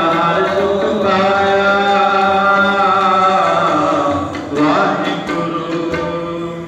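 Harmonium playing sustained chords under a man singing Sikh kirtan in long, drawn-out notes; the music tapers off at the end.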